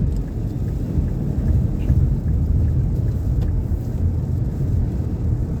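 Steady low rumble of road and engine noise inside a Nissan Pathfinder's cabin while it drives at about 55 mph.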